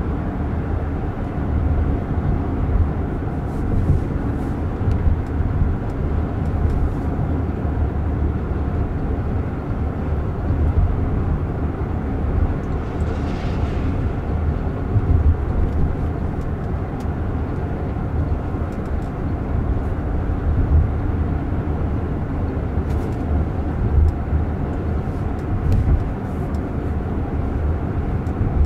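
Steady low road and tyre rumble heard inside the cabin of a Waymo Jaguar I-PACE electric car driving at speed, with no engine sound. A brief swell of hiss about halfway through.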